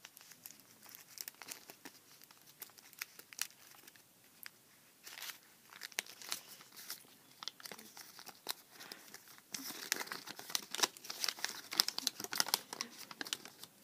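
Paper crinkling and rustling as a folded paper note is handled and unfolded, with denser, louder crackling in the second half.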